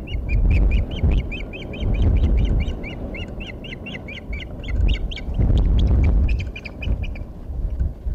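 Osprey calling from its nest: a fast run of high, repeated chirps, about four or five a second, that stops about a second before the end. Gusts of wind rumble on the microphone.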